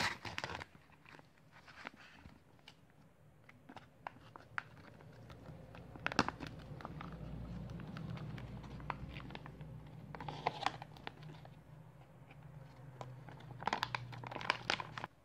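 Foil retort ration pouch (24 Hour Meals) being torn open and crinkled as it is handled and squeezed out, with scattered sharp crackles and rustles. A low steady hum sits underneath from about five seconds in.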